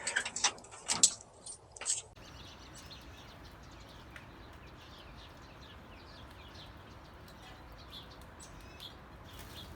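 A few sharp clicks and rustles in the first couple of seconds, then an abrupt change to faint, many small bird chirps over a soft steady hiss.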